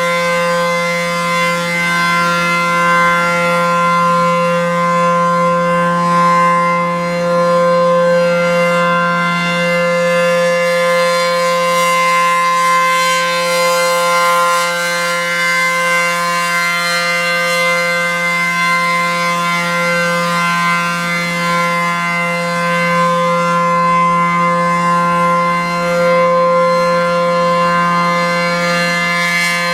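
ACA P-10 outdoor warning siren sounding a steady tone, held at one pitch with only slight swells in loudness.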